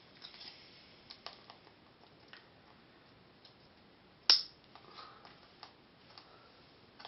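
Small scattered clicks and taps of a metal spring and needle-nose pliers against a plastic battery box as the spring is worked through a drilled hole, with one sharp click a little past halfway.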